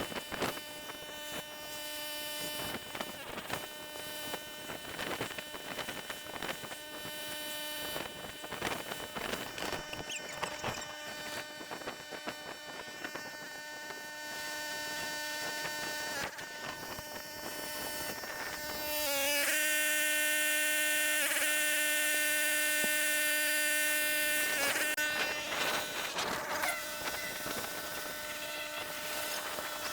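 A small engine-driven machine running at a steady speed with a buzzing drone and scattered knocks and clicks. It gets noticeably louder a little over halfway through, with a brief dip in pitch as it does, then eases back near the end.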